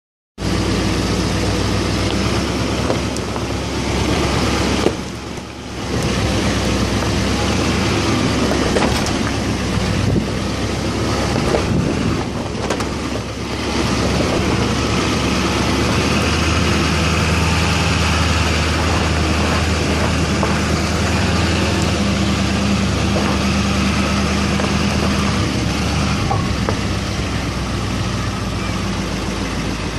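Pickup truck with mud-terrain tyres crawling along a rocky dirt trail: its engine runs steadily under the noise of the tyres rolling over loose stones.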